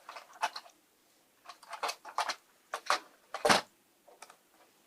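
Small clicks and scrapes of a screwdriver and hands working on a plastic G scale model passenger car while its wheel truck is unscrewed. The loudest is a sharp knock about three and a half seconds in.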